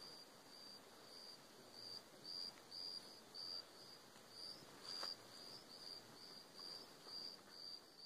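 Insects chirping: a faint, high, single-pitched chirp repeated evenly about two to three times a second.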